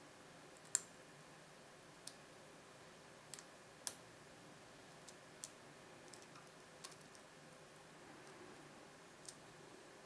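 Faint, irregular metallic clicks and ticks of a hook pick and tension wrench working the pin tumblers of a small brass Yale Y110/40 padlock, about a dozen in all, the loudest about a second in.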